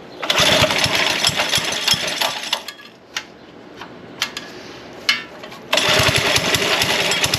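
Small single-cylinder Briggs & Stratton 3 hp go-kart engine running with a rapid firing beat, loud in two stretches broken by a quieter spell of about three seconds with a few clicks.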